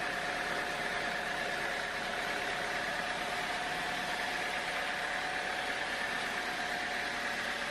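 Sawmill machinery running steadily: an even mechanical noise with a constant whine that does not change in pitch.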